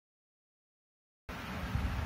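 Dead digital silence for about the first second, then steady background hiss with a low rumble cuts in.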